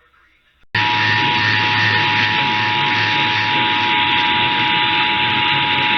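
Emergency Alert System two-tone attention signal (853 and 960 Hz sounded together) cuts in abruptly about three-quarters of a second in and holds steady over radio static hiss and a low hum, the alert tone that opens the broadcast EAS required monthly test.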